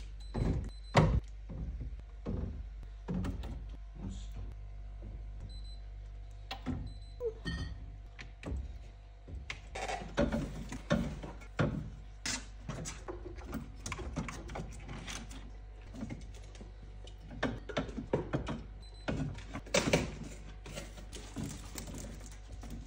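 Plastic drinks bottles and cans being set down and shuffled on the wooden shelves of a drinks fridge: a run of irregular knocks, taps and clinks, with a steady low hum underneath.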